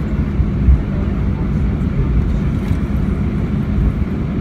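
Cabin noise of an Airbus A319 rolling out along the runway after landing: a steady low rumble of the idling engines and the wheels on the runway, with a faint hum and a small bump about a second in.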